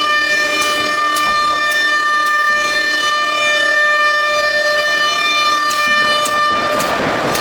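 Nesting CNC router spindle running with a steady whine, several pitches held together. Near the end a rougher rushing noise rises under the whine.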